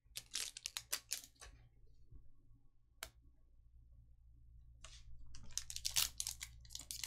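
Trading cards being handled in a quick run of clicks and rustles, then a foil card pack being torn open, its wrapper crinkling over the last two seconds.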